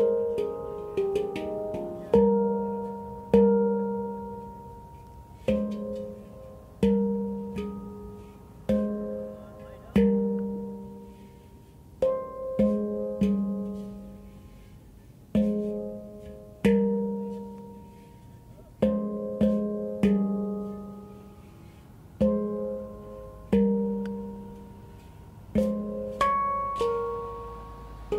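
Handpan in F minor played solo: single struck notes and short flurries, each ringing out with a warm, slowly fading tone before the next stroke, in an unhurried rhythm.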